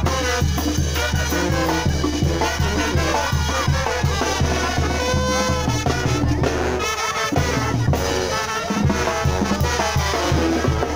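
Upbeat Latin dance music with brass and a steady drum beat.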